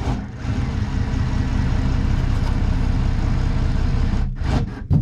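A motor running steadily with a low rumble for about four seconds, then stopping.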